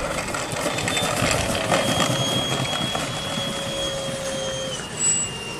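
Model T-28 warbird's motor and propeller running at low taxi throttle as the model rolls along the runway: a steady whine whose pitch drops slightly near the end.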